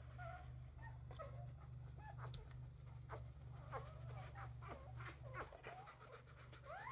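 A three-day-old Newfypoo puppy squeaking and whimpering faintly in short cries that glide up and down while it is handled, with scattered soft clicks.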